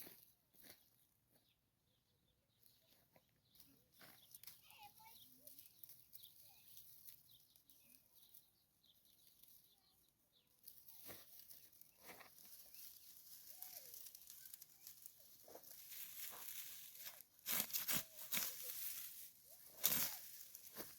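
Chickens clucking faintly. From about halfway, dry rustling and crackling builds, with several sharp louder crunches near the end.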